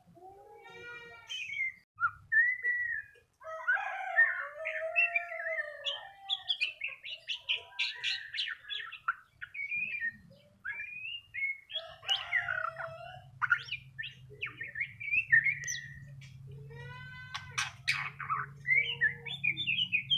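Young white-rumped shama (murai batu), about two months old, singing a long, near-continuous run of varied whistled and chattering phrases.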